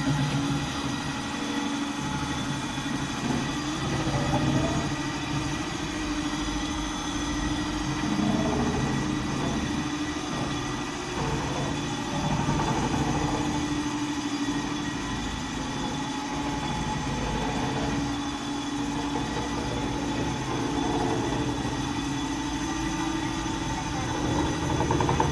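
Steady mechanical hum and rumble of a railway turntable turning with the D51 steam locomotive standing on it under steam.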